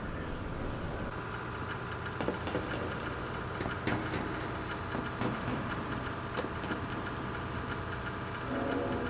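A steady low mechanical rumble, like a running vehicle, with a few sharp clicks spaced about a second and a half apart.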